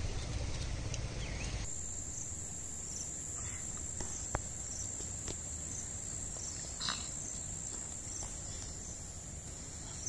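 A steady high-pitched insect drone, with a few faint clicks and short chirps over it. A low rumble fills the first couple of seconds, then stops abruptly.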